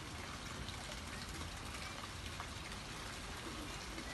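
Water falling into a koi pond, a steady splashing trickle made of many small drops.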